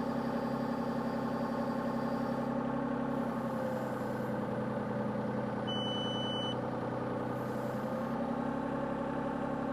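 Excavator engine running steadily, its pitch sagging a little in the middle. A short high electronic beep sounds about six seconds in.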